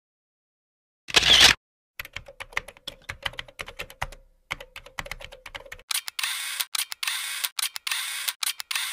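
Animated outro sound effects: a short burst of noise about a second in, then a quick run of sharp typing-like clicks, turning into a denser rattle of clicky bursts for the last three seconds.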